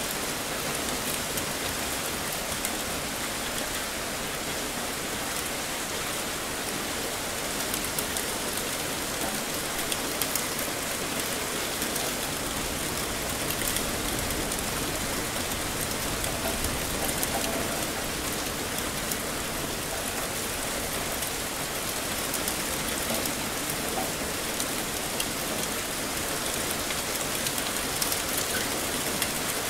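Heavy rain falling steadily, an even dense hiss with scattered sharper drop hits.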